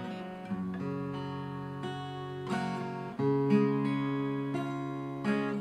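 Acoustic guitar played in a combined fingerpicking-and-strum pattern: a thumbed bass note, plucked upper strings, then quick down-up strums. The chord changes about three seconds in.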